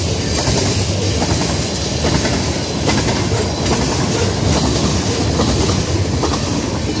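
Norfolk Southern freight train's tank cars and a covered hopper rolling past: a steady rumble of steel wheels on rail with clickety-clack over the rail joints.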